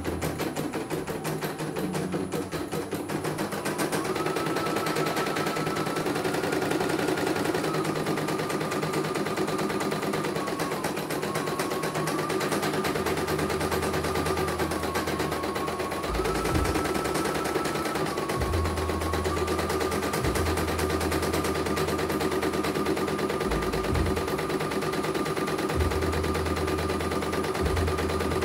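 Computerized household embroidery machine stitching a design: a fast, even rattle of needle strokes, with a motor whine that shifts a little in pitch as the speed changes. A low hum comes and goes through the second half. The machine is running smoothly.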